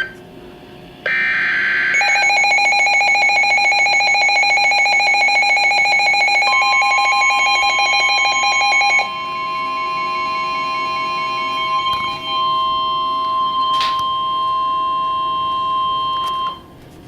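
Emergency Alert System signal on NOAA Weather Radio, announcing a severe thunderstorm warning. About a second in comes a short burst of screeching digital header tones. A fast-pulsing electronic alarm of several tones follows. From about six seconds in, the long steady warning alert tone overlaps it and holds for about ten seconds before cutting off.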